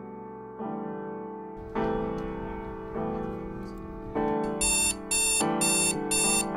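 Soft piano music playing slow chords. About two-thirds of the way in, a repeated electronic beeping like an alarm joins in, roughly two beeps a second, louder than the piano.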